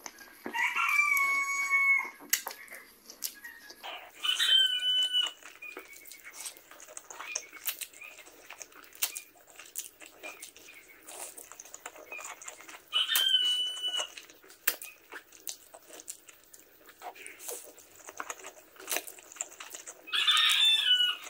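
A rooster crowing four times, each crow about a second long, rising briefly and then held steady. Under it are quieter close-up wet clicks of slurping and chewing noodles.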